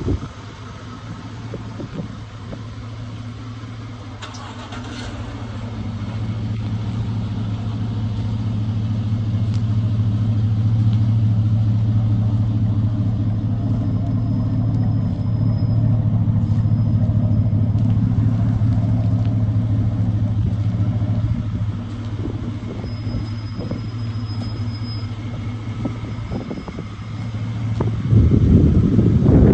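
Chevrolet Avalanche 1500's 5.3-litre V8 idling steadily with a low, even drone. It grows louder a few seconds in and louder again near the end.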